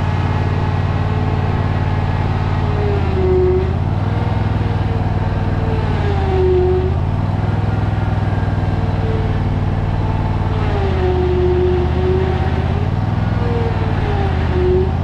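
A motor running steadily, its pitch stepping up and down every few seconds, with a higher whine wavering over it.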